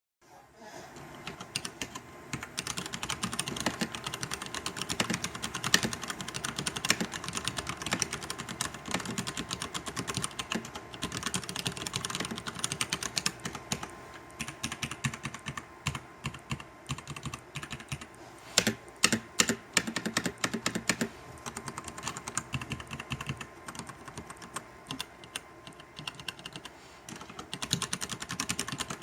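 Fast, continuous typing on a Hansung Gtune MKF14S XRGB mechanical keyboard with brown tactile switches and double-shot keycaps: a dense clatter of keystrokes. A little past the middle come a few louder, more widely spaced strokes.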